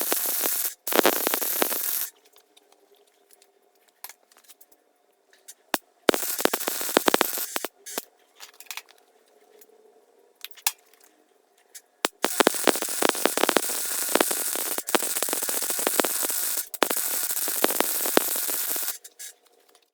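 MIG welding in short runs: the arc's hissing crackle in about five bursts of one to four seconds, stopping and restarting, with a faint steady hum in the pauses. The small MIG welder is underpowered for the heavy steel, in the welder's own words.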